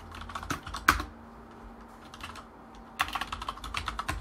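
Typing on a computer keyboard: a few scattered keystrokes with one louder click about a second in, then a quick run of keystrokes from about three seconds in as a command is typed.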